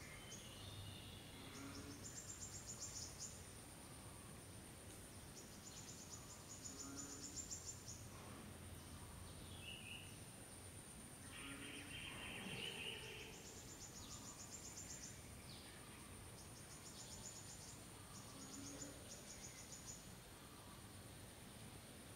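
Faint outdoor ambience with an insect buzzing in high, rapidly pulsed trills of one to two seconds, repeated several times. A shorter, lower call comes about halfway through, and a faint steady high whine runs underneath.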